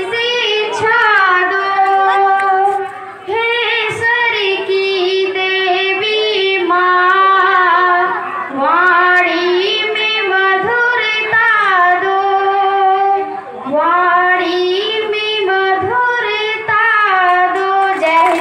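A schoolgirl singing a song solo into a microphone, in long held melodic phrases with short pauses for breath.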